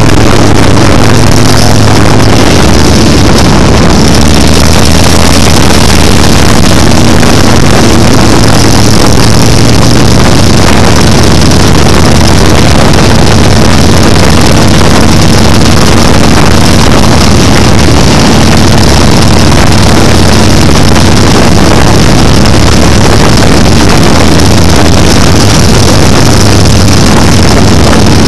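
Motorcycle engines running steadily at highway cruising speed, with wind rushing over the microphone; very loud, close to clipping.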